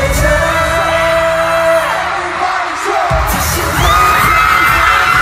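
Loud live pop music with singing, as heard in a concert arena. The low beat drops out about two and a half seconds in and comes back about half a second later.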